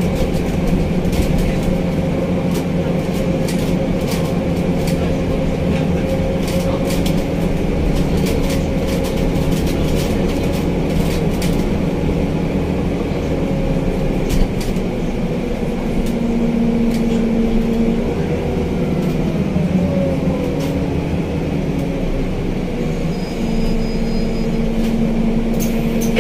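Interior running noise of a Scania Citywide CN280UB city bus under way: a steady engine and drivetrain drone with a whine whose pitch shifts a few times as the bus changes speed, and scattered light clicks and rattles from the cabin.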